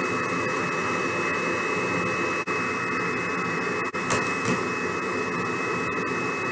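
Vacuum cleaner motor running steadily, a constant rushing noise with a high-pitched whine, briefly dipping twice.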